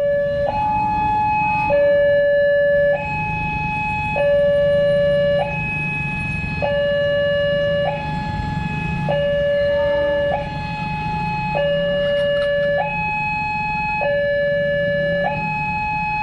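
Railway level-crossing warning alarm sounding a two-tone hi-lo signal: a higher and a lower tone alternate about every 1.2 seconds without a break, warning that a train is approaching and the barrier is closed.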